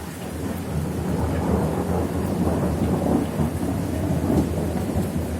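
Thunder rumbling over steady rain during a thunderstorm; the low rumble swells and rolls on through the middle, with the rain hissing underneath.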